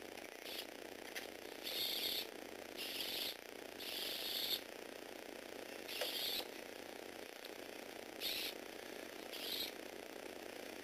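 Small electric gearbox motor and plastic gears of a remote-controlled Lego Technic tracked vehicle whirring in about seven short bursts as it is driven.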